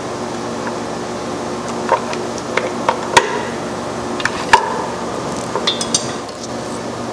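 Steel hand tool prying the rear main seal retainer plate off a Ford 5.0 Coyote aluminum engine block, breaking its silicone seal: scattered metallic clicks and taps, the sharpest about four and a half seconds in and a quick cluster near six seconds, over a steady background hum.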